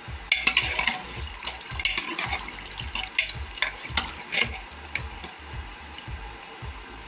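Pieces of mutton being dropped into hot water in a pressure cooker and stirred, with a run of irregular splashes and clinks that thin out after about five seconds.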